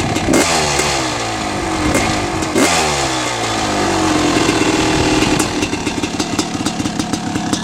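Honda CR500R's two-stroke single-cylinder engine blipped twice, the revs falling slowly back after each blip, held briefly at a steady higher speed, then dropping back to a choppy, popping idle about two-thirds of the way through.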